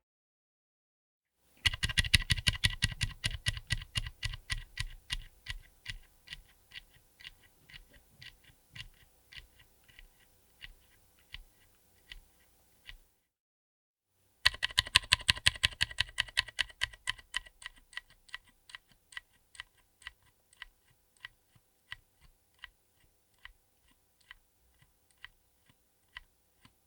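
Typing on a mechanical keyboard fitted with Gazzew U4Tx 65g tactile switches, which bottom out with a thocky sound. There are two runs of keystrokes with a brief pause between them. Each run starts fast and loud, then slows to single, spaced presses that grow quieter.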